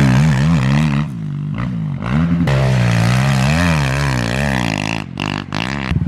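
Small single-cylinder four-stroke pit bike engine being ridden, its pitch rising and falling over and over as the throttle is worked, with brief drops off the throttle about a second in and again near the end.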